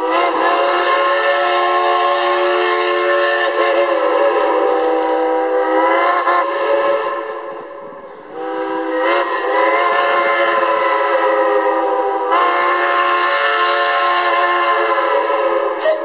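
Steam engine's whistle blowing two long blasts, several notes sounding together as a chord, with a brief break about eight seconds in.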